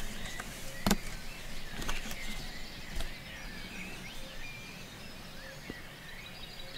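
Outdoor ambience with several small birds chirping and singing in short calls, and a few sharp clicks, the loudest about a second in.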